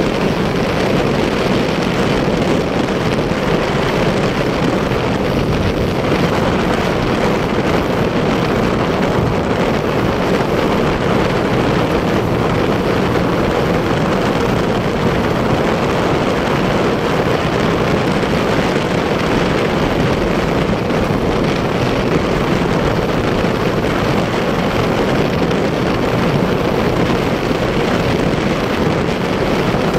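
Motorcycle riding at a steady cruising speed: engine running evenly with wind rushing over the microphone.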